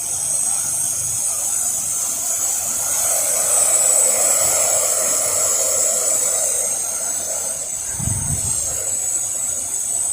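Pressure washer spraying water in a steady hiss with a high, even whine, as the house is rinsed. A short low rumble comes about eight seconds in.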